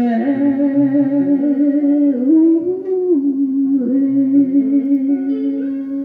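Instrumental interlude of a Vietnamese ballad: a lead melody of long held notes that bend and slide between pitches, over plucked guitar accompaniment.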